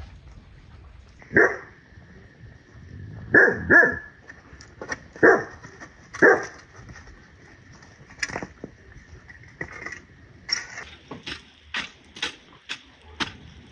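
A dog barking several times, a few seconds apart, through the first half. Near the end, a metal shovel scraping and clinking through burnt-down campfire embers.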